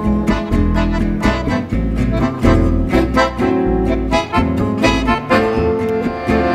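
Live gypsy jazz from an acoustic quartet: steady strummed rhythm guitar, accordion, a second guitar and a plucked upright double bass walking beneath.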